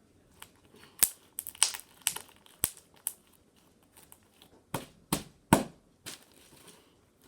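A run of about a dozen sharp, irregular crackles and clicks, the loudest about a second in and about five and a half seconds in.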